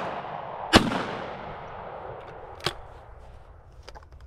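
One shotgun shot about a second in, its echo rolling away over the next two seconds. A fainter sharp crack follows about two seconds after the shot.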